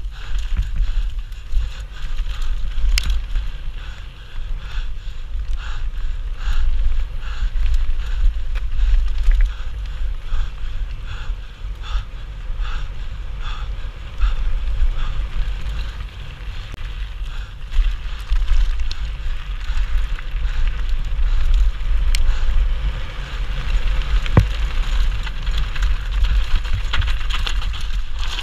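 Mountain bike descending a dirt trail at speed, heard through a GoPro: wind buffeting the microphone in a loud, steady low rumble over the noise of the tyres and the bike rattling over the ground, with a few sharp clicks.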